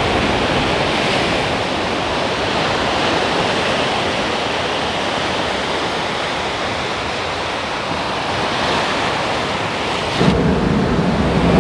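Sea surf breaking and washing up on a sandy beach: a steady rush of waves, with a louder low rumble near the end.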